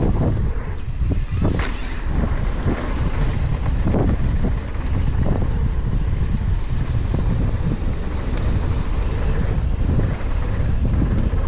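Wind buffeting the microphone of a camera on a mountain bike riding fast downhill, over a steady rumble of tyres on packed dirt. Short knocks and rattles from the bike come through here and there.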